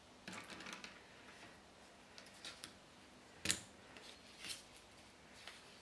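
Scattered small clicks and brief paper rustles as felt-tip markers and a paper card are handled, with one sharper click about three and a half seconds in.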